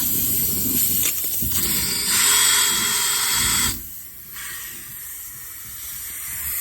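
Cordless drill running with a steady whine, reaming out the screw hole in a tire's tread for a plug, stopping abruptly about four seconds in, over a constant background hiss.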